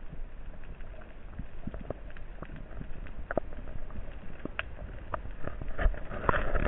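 Muffled underwater ambience: a low rumble of moving water with scattered sharp clicks and crackles, swelling louder near the end.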